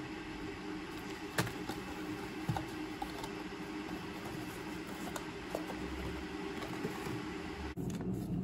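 Steady low room hum with a few light taps and clicks, as a paper coffee sachet is handled and set down on a desk. The background hum changes abruptly near the end.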